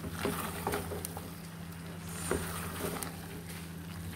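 Wooden spoon stirring a thick liver and vegetable stew in an aluminium pot, with several short knocks and scrapes against the pot, the sharpest about two seconds in, over a steady low hum.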